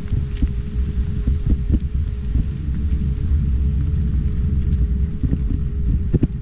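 Electric scooter riding along a paved path: heavy wind and road rumble on the camera's microphone, a steady whine from the scooter's electric motor, and occasional sharp clicks.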